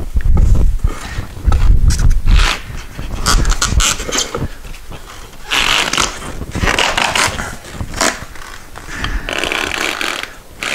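An old motorcycle tire being forced off a spoked wheel rim: heavy knocks and thumps in the first couple of seconds, then several separate scraping strokes of rubber and tools against the rim.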